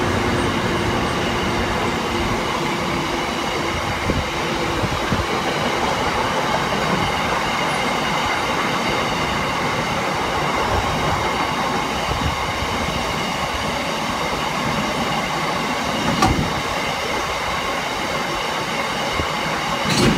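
Freight train of loaded cement tank wagons rolling past through a station: steady wheel-on-rail noise with a faint high ring, and a few sharp knocks over the rails.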